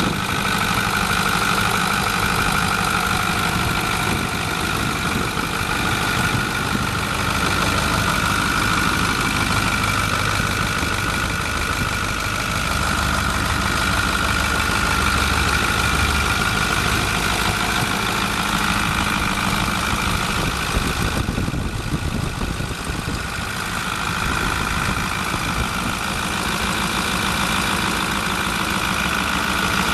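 A 2009 Ford F350 Super Duty's 6.4L V8 diesel engine idling steadily.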